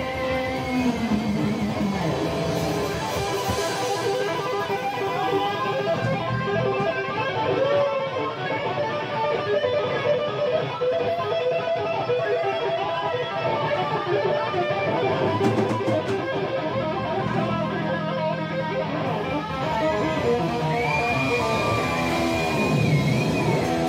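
Live rock band playing, with electric guitar to the fore over bass guitar. Near the end a note swoops down and back up.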